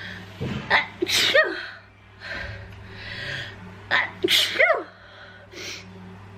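A person with a head cold sneezing twice, about three seconds apart. Each sneeze starts with quick gasping in-breaths and ends in a loud burst with a short cry that falls in pitch. Noisy breathing comes in between.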